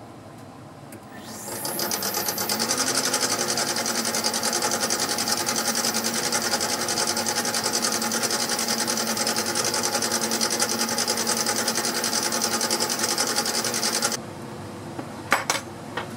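Mini lathe starting up: the motor and spindle gearing spin up with a rising whine, then run steadily with a fine, fast mechanical rattle. The sound cuts off suddenly near the end, followed by two sharp clicks.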